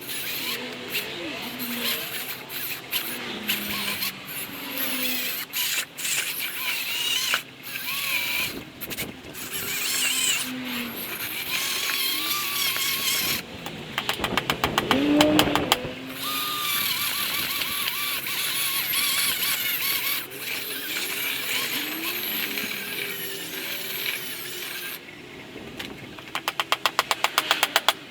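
Plaster and sand being stirred and scraped in a plastic bucket, a rough scraping with squeaks, and two runs of quick rattling clicks midway and near the end.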